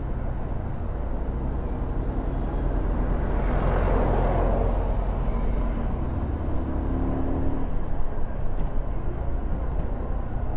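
Steady low rumble of engine and road noise from driving in city traffic, with a brief swell of hiss about four seconds in and a few short knocks near the end.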